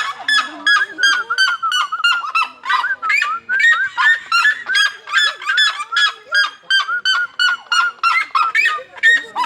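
A flock of birds calling loudly: a dense, unbroken chorus of short, arched calls, several a second, overlapping one another.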